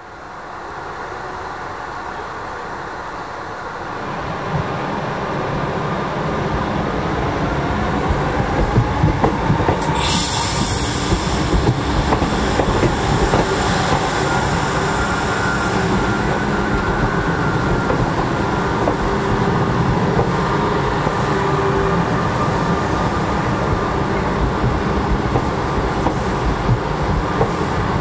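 Electric passenger train at a station platform: a rolling rumble with wheel clatter and some squeal, growing over the first few seconds and then steady, with a short sharp hiss about ten seconds in.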